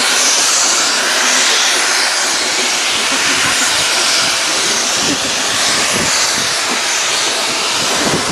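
Steam locomotive working hard as it hauls a train of coaches away, a steady hiss of exhaust steam with soft regular chuffs. From about halfway, low knocks join in as the coaches roll by on the rails.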